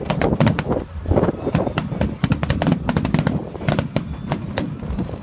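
Aerial firework shells bursting in rapid succession: many sharp bangs and crackles overlapping, several a second, over a low rumble.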